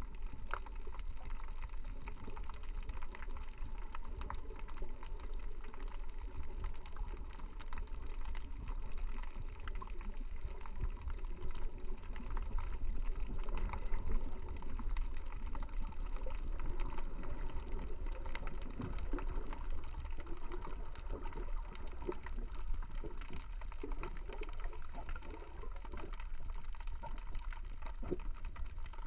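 Underwater ambience heard through a GoPro's waterproof housing: a steady muffled rumble of moving water with a scattering of small clicks and crackles.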